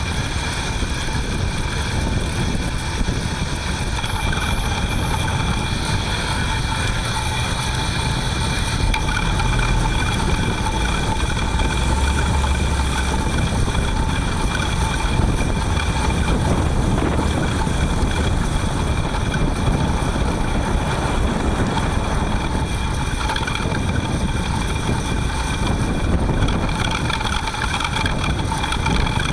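Front hub motor of a Panasonic ViVi Charge electric-assist bicycle whining steadily in several pitches while riding, over a low rumble of wind and road noise.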